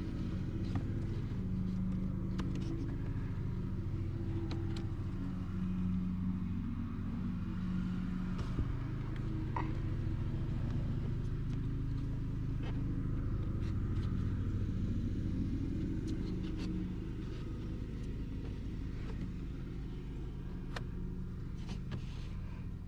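Steady low mechanical hum with a few faint clicks and taps over it.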